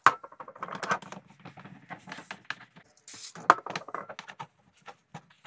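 Cloth scrubbing and rubbing inside a plastic motorcycle radiator fan shroud, with knocks as it is handled and a brief hiss of aerosol brake cleaner about three seconds in.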